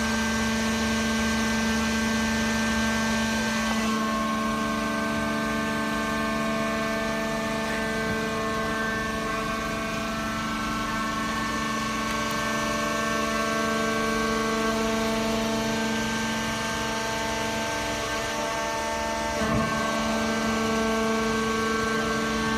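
Horizontal cardboard baler's hydraulic power unit running with a steady hum, with one brief knock near the end.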